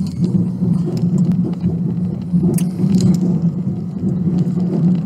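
Car driving, heard from inside the cabin: a steady low engine and road drone, with a few light ticks scattered through it.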